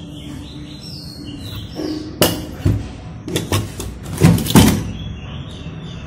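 Loudspeakers knocking against each other and against a plastic basket as they are rummaged through and lifted out: a run of sharp clunks starting about two seconds in, the loudest pair just after four seconds.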